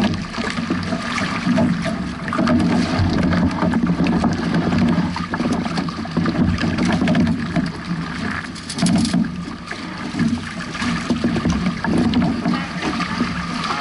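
Water rushing and slapping against a Hobie 16 catamaran's hull as it sails through choppy waves, with wind buffeting the microphone in an uneven, surging rumble.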